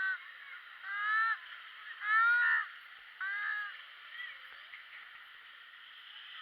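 Steady rush of a waterfall, with short, high, rising calls cutting through it four times, about a second apart, in the first half.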